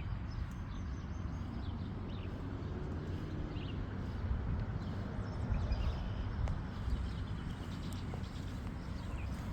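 Outdoor ambience: wind rumbling on the microphone, with faint bird chirps and a few soft clicks.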